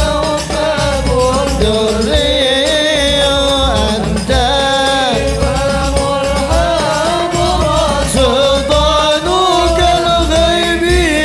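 Arabic qasidah sung by a male voice with a hadroh ensemble of frame drums keeping a steady beat underneath. The melody flows on without a break.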